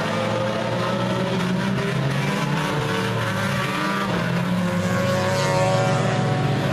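A pack of U-car class stock cars racing on a dirt oval, several engines running hard at once and overlapping, getting louder toward the end as the cars come through the turn close by.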